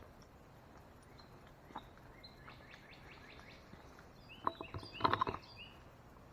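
Birds chirping: a quick series of short chirps, then a louder, sharper burst of chirps and clicks about four and a half to five and a half seconds in, over a faint outdoor background.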